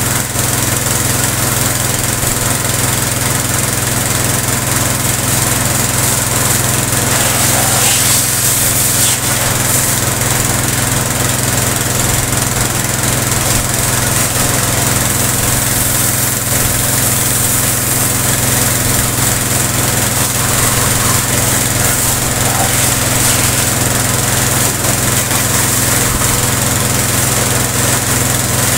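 Sanchin high-pressure washer running steadily at about 40 bar, its motor drone under the hiss of the water jet spraying onto a scooter.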